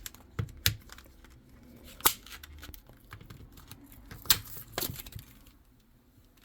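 Trading-card packaging being opened and handled by hand: crinkling plastic wrap and several sharp clicks and snaps.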